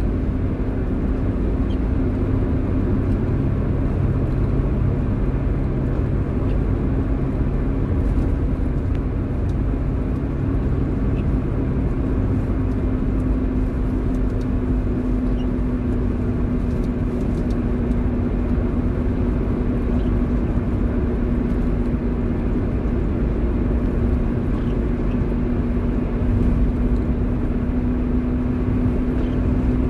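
Car driving in the rain: steady engine and tyre noise with a continuous low drone, and occasional faint ticks of raindrops.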